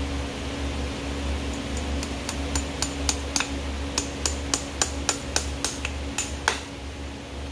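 Farrier's driving hammer tapping horseshoe nails through a steel shoe into a horse's hoof wall: a quick, uneven run of sharp taps, about three or four a second. The taps start about one and a half seconds in and stop about six and a half seconds in, over a steady background hum.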